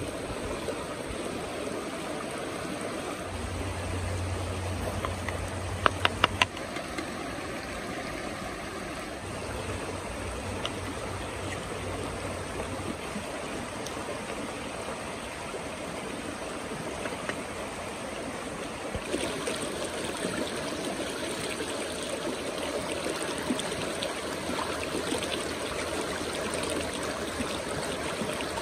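A rocky forest stream rushing steadily over stones, its hiss turning brighter about two-thirds of the way through. About six seconds in come four sharp knocks in quick succession.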